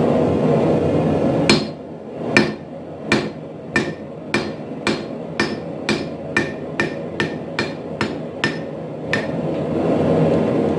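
Forging hammer striking steel on an anvil, about fifteen blows with a short metallic ring each, starting about a second and a half in and coming gradually faster before stopping near the end. A steady rushing noise runs underneath, loudest before and after the hammering.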